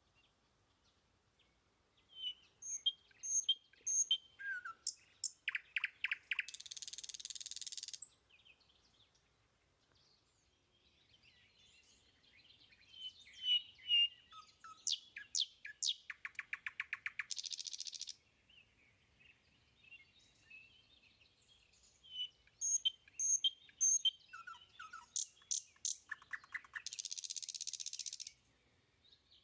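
Birdsong with quick chirps and trills, each phrase ending in a short hissing buzz. The same few seconds of song play three times, about ten seconds apart, with silence between: a looped birdsong sound effect.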